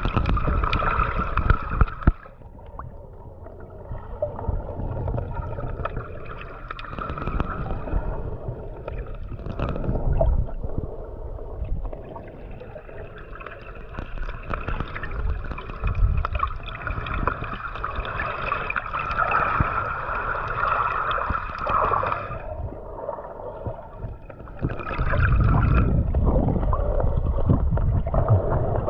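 Muffled underwater water noise: sloshing and gurgling around a submerged camera, surging and easing as the snorkeler moves. A faint steady whine comes and goes over it.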